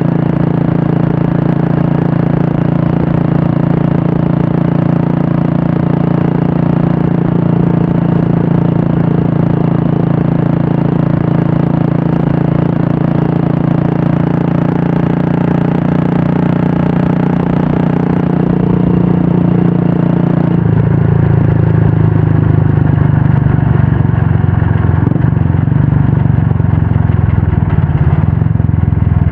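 Royal Enfield Classic 350's single-cylinder engine running through an aftermarket Red Rooster stainless-steel exhaust, holding a steady note. About twenty seconds in, the note drops lower and gets a little louder.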